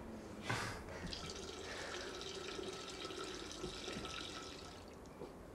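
A soft knock, then a faint stream of urine trickling into a toilet bowl, starting about a second in and tailing off near the end.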